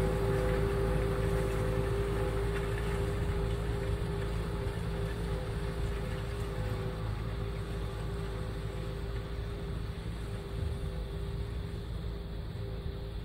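Kubota M7060 tractor's four-cylinder diesel engine running steadily under load while pulling a tine cultivator through the soil. The drone slowly fades as the tractor moves away.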